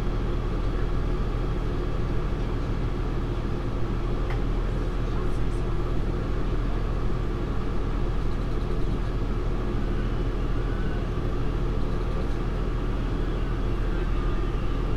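Steady low hum of a Nippon Sharyo diesel multiple unit's diesel engine. It is heard from inside the passenger car as the train creeps along a station platform.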